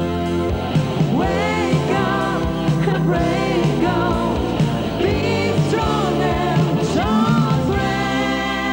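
Rock music with a singing voice over guitar and a steady beat.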